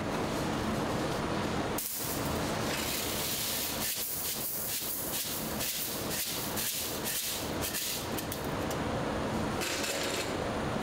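Masses of small steel screws poured from a metal bucket into a perforated steel tray, a dense rattling clatter of many quick clicks from about two seconds in until nearly eight seconds, over steady factory machinery noise.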